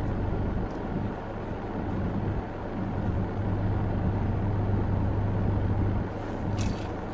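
Steady low hum of an idling car engine, with a short crunch near the end from a bite of crispy fried chicken strip.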